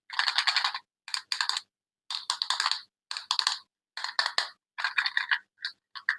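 Crisp crackling and clicking of packaging being handled up close, in about eight short bursts of half a second or so with brief silences between.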